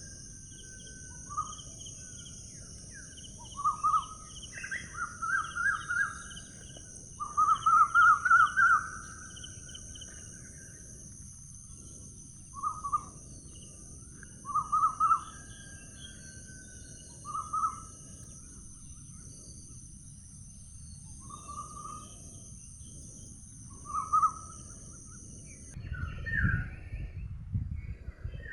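Outdoor ambience of birds calling: short chirping phrases and quick trills repeated every second or two, over a steady high-pitched hum and a low rumble of wind. The high hum cuts off suddenly about 26 seconds in, and louder low rustling follows.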